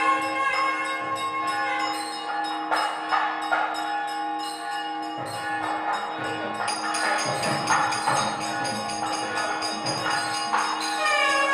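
Temple bells ringing rapidly and continuously during the lamp aarathi, many strikes ringing over one another above a steady low tone.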